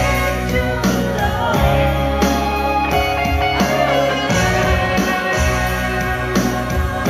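Karaoke: a woman and a man singing into microphones over a backing track with guitar.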